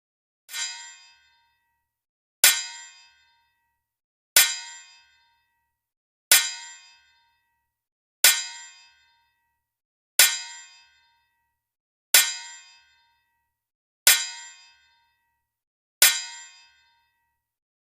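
The same metallic clang sound effect played nine times, about once every two seconds, each hit ringing out briefly; the first is quieter than the rest.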